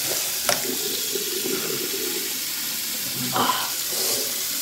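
Bathroom sink faucet running steadily, water splashing into the basin. A sharp click comes about half a second in, and a brief vocal sound about three seconds in.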